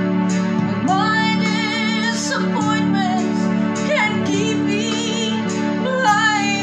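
A woman singing a slow Christian devotional song over an instrumental backing track, holding notes with vibrato.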